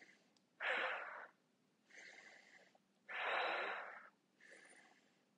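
A woman breathing audibly in time with quick seated yoga twists: two strong exhales, each about a second long and about two and a half seconds apart, with fainter inhales between them.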